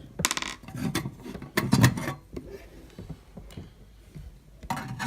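Clicks, knocks and light rattling of fire alarm equipment being handled and set down. They come in a few short clusters with a quieter spell in the middle; the loudest knock is just under two seconds in.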